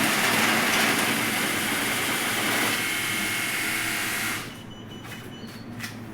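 A steady, loud rushing noise that cuts off suddenly about four and a half seconds in, leaving a quieter background with a faint thin high tone.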